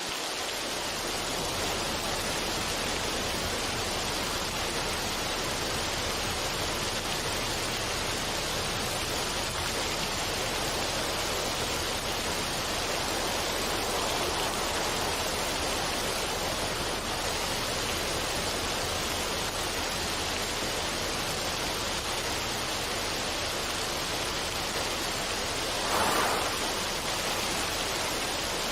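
Running water rushing steadily as an even hiss, swelling briefly louder near the end.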